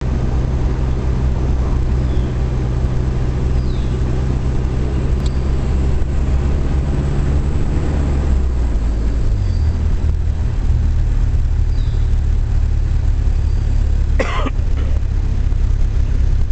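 Car engine and road noise heard from inside the cabin while driving, a steady low drone whose engine note shifts about eight to nine seconds in. A brief sharp sound breaks in about fourteen seconds in.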